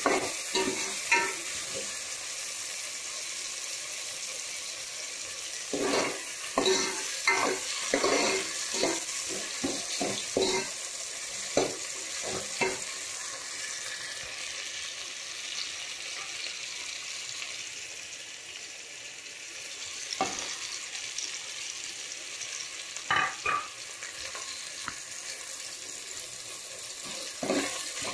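Chopped vegetables frying in oil in a pan with a steady sizzle, stirred with a spatula that scrapes and knocks against the pan in bursts, about six to thirteen seconds in and again around twenty to twenty-four seconds.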